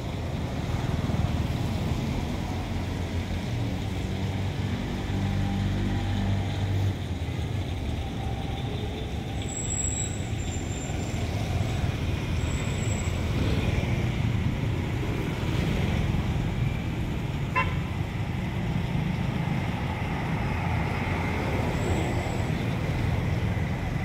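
Street traffic: motor scooter and car engines running past on a road, a steady low rumble that swells and fades as vehicles go by.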